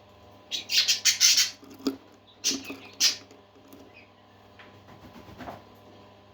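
Parakeets chirping and squawking in quick, sharp calls. A dense cluster comes in the first second and a half, then a few single calls around two and a half to three seconds, then fainter chatter, over a steady low hum.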